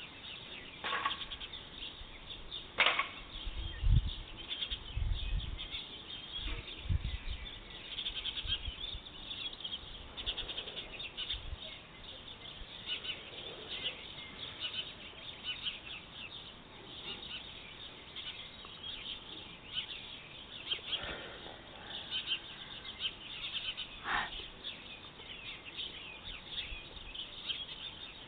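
Birds chirping and twittering, with a couple of longer falling calls. A few low rumbles, like wind on the microphone, come a few seconds in.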